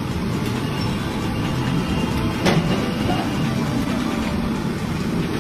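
Steady street background noise with a low traffic rumble, and a single sharp clack about two and a half seconds in.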